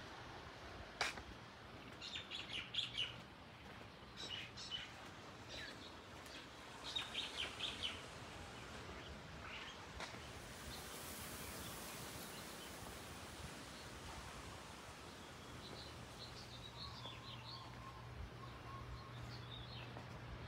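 Small birds chirping in short, quick runs of high notes, several times over, against faint outdoor background noise.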